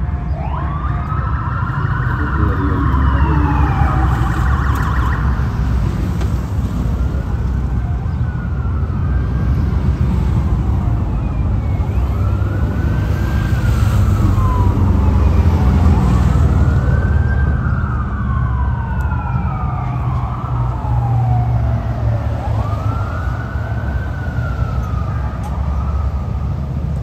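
Police siren wailing, each call a long rise and fall in pitch repeated every three to four seconds, over a steady low rumble.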